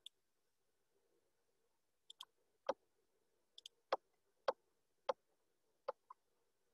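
Computer mouse clicking: a series of sharp clicks, a few faint quick pairs followed by about five louder single clicks under a second apart in the second half, advancing the equation lines on a lecture slide.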